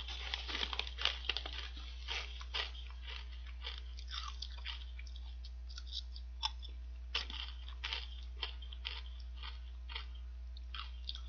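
A person biting and chewing kettle-cooked potato chips with sharp, irregular crunches. The crunches come thick in the first few seconds, then more spaced out.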